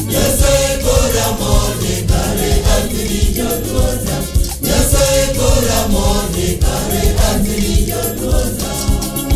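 Choir singing a gospel song over instrumental backing with a steady bass and beat. The voices carry two long falling phrases, the second about halfway through.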